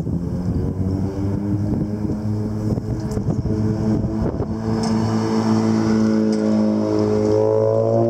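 A vehicle engine running close by, a steady hum that grows louder from about halfway through and rises slightly in pitch near the end, over gusty wind buffeting the microphone.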